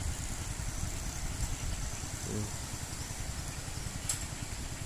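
A small engine running steadily at idle, a low even rumble. A brief voice sound comes about two and a half seconds in.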